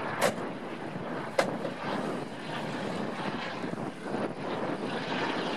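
Two sharp clicks about a second apart as a pointed fitting is pressed down into place on the body of a Citroën DS, over a steady engine-like drone.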